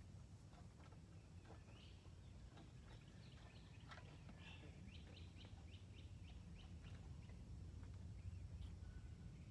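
Near silence: a low steady rumble with faint bird chirps, including a quick run of chirps near the middle.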